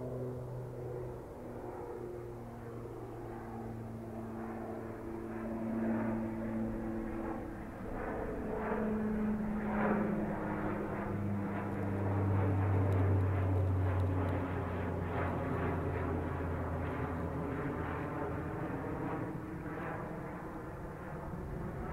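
Twin-turboprop airliner passing overhead: a steady propeller drone whose pitch drops about nine seconds in as it goes over. The drone is loudest a few seconds later.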